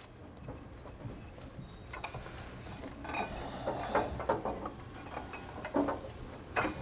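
Engine drive belts being worked off their pulleys by gloved hands: light rubbing and rustling with scattered small clicks and clinks, busier from about three seconds in.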